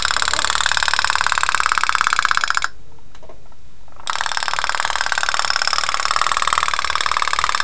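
Toy pop-pop boat's candle-heated boiler putt-putting with a fast, buzzing rattle as it pushes the boat along. The rattle breaks off for about a second and a half midway, then starts again.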